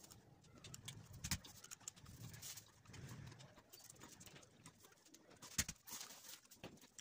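Faint handling of a paper kite, with a few sharp clicks and taps, and a bird cooing softly in the background.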